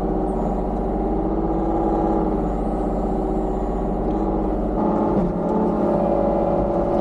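Kubota KX033-4 mini excavator's diesel engine running steadily under work, its pitch shifting about five seconds in.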